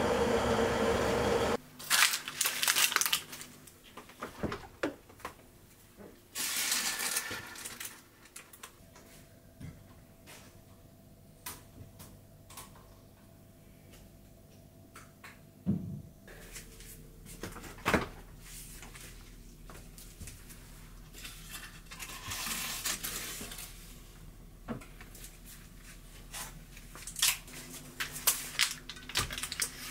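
Kitchen handling noises: scattered clicks and knocks of the baking tray and cake tin, with several stretches of crinkling parchment paper as the baked cheesecake is handled. A steady hum cuts off about a second and a half in.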